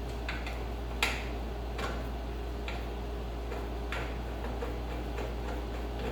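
Scattered light metallic clicks and taps at irregular intervals, the loudest about a second in, from small parts and tools being handled, over a steady low hum.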